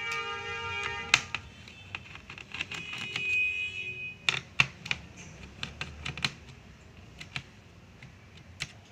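Electronic tones for the first four seconds, in two stretches. Then a string of sharp clicks and taps from a screwdriver and small screws on a laptop's metal-and-plastic palmrest.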